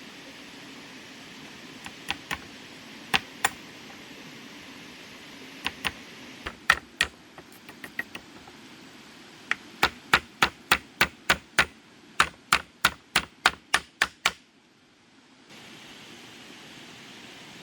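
A series of sharp knocks over a steady low hiss: a few scattered pairs at first, then an even run of about three knocks a second for about five seconds, which stops suddenly.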